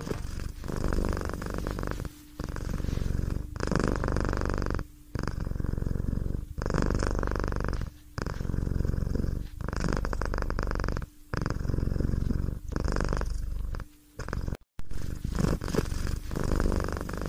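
Domestic cat purring close up, a steady low rumble in stretches of about a second and a half, each broken by a short gap.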